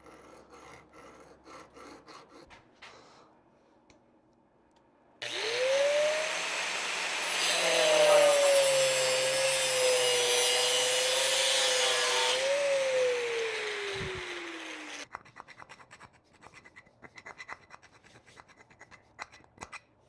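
A few hacksaw strokes on copper pipe. Then an angle grinder spins up with a rising whine, cuts into the copper for several seconds, the loudest part, and winds down with a falling whine. Light scraping and handling clicks follow.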